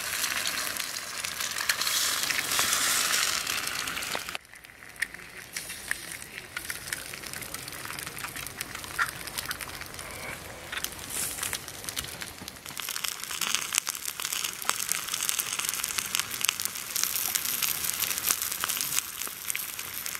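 Eggs sizzling as they fry in a soldier's mess-tin frying pan over campfire coals, a steady hiss with many small pops. The sizzle is louder for the first four seconds or so, then drops abruptly to a quieter level.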